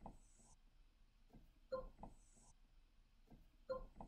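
Near silence: faint room tone with a soft click repeating about every two seconds.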